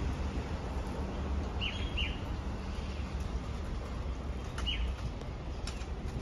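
Low rumble of a departing MTR Light Rail Phase V light rail vehicle pulling away and fading near the end. Short bird chirps sound over it, two close together about two seconds in and another near five seconds.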